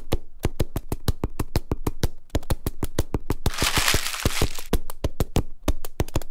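Logo-intro sound effect: a rapid, even run of sharp clicks, about seven a second, with a rush of hiss lasting about a second, starting a little past halfway as the logo appears.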